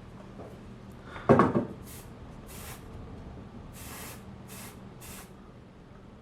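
Aerosol can of smoke-detector test smoke sprayed in five short hissing puffs into an addressable smoke detector to set it off, after one sharp knock about a second in.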